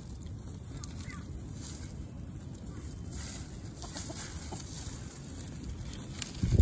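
A flock of chickens, Australorp hens and a Brown Leghorn rooster, clucking now and then while they forage, over a steady low rumble. A loud low thump comes just before the end.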